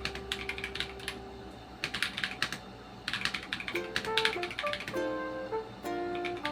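Fast typing on an Onikuma G52 mechanical keyboard: clattering key clicks in quick bursts with short pauses between, as during a typing speed test. Background music with plucked notes plays under it.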